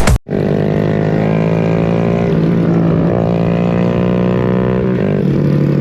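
An electronic music track cuts off abruptly. Then a motorcycle engine idles steadily, shifting slightly in pitch about five seconds in.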